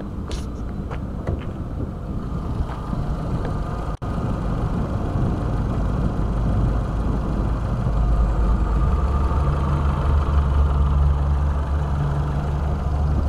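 Renault Mégane III engine running steadily with the bonnet open, carrying an extraneous noise that the owner cannot identify. About eight seconds in it gets louder, with a stronger low hum.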